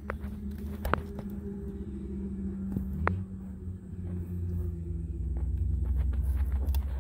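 Low steady mechanical hum over a rumble that grows louder after about five seconds, with a few sharp clicks.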